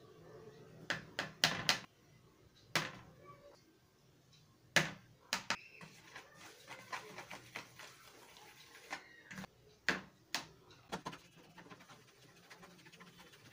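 A small wire whisk beating eggs and milk in a plastic bowl, with quick light ticks of the wires against the bowl from about halfway through. Before that come a few sharp knocks of utensils against the bowl.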